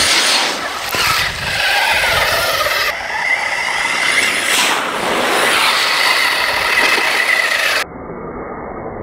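Electric motor and gear drive of a 6x6 radio-controlled mud truck whining steadily as it drives through a shallow puddle, with water splashing off its tyres. The sound drops off suddenly near the end to a quieter background hiss.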